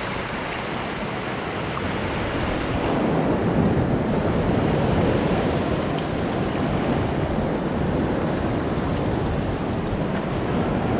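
Sea surf breaking and washing over rocks, a steady rushing noise with some wind on the microphone, growing a little louder about three seconds in.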